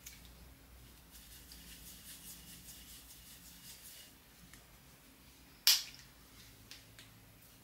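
A single sharp click about three-quarters of the way through, with a few faint ticks around it, over quiet room tone.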